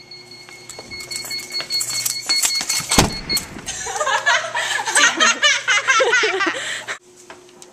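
Knocks and rustling from the camera being handled, a thump about three seconds in, then a girl's high-pitched laughter for about three seconds that cuts off suddenly near the end.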